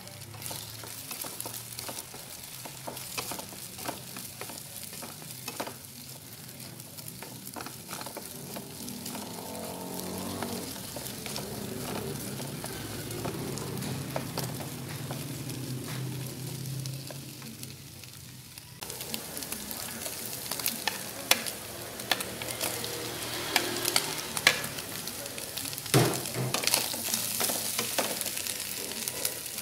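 Eggs and flaked sardines sizzling in a nonstick frying pan while a wooden spatula stirs and scrapes them, with frequent sharp taps of the spatula against the pan. The sizzle gets louder about two-thirds of the way through.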